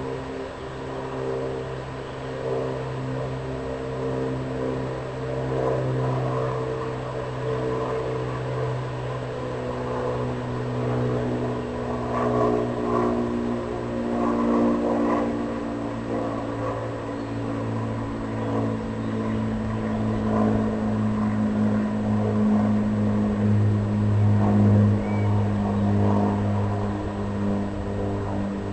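A steady engine drone whose pitch sinks slowly and evenly across the half minute.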